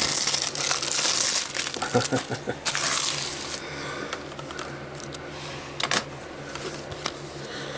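Plastic shrink-wrap being torn and crinkled off a Blu-ray case. It is loudest in the first second or two, goes on in bursts until about halfway, then drops to quieter handling of the case with a sharp click near the end.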